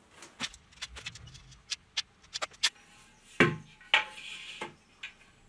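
Tools being handled: scattered light clicks and taps, then two louder knocks about half a second apart as a spirit level is set against the wall, followed by a brief scrape against the wall.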